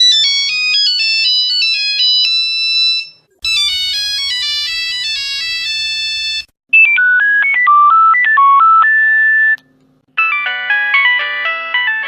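Nokia phone ringtones playing one after another: four short melodic versions of about three seconds each, with brief gaps between them. The first two are high and beepy, the third is lower with a steady hum under it, and the fourth is richer, with several notes sounding at once.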